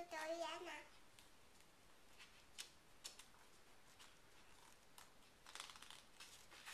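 A young child's voice briefly in the first second, then near silence with a few faint soft taps and rustles of a hardcover picture book's paper pages being handled.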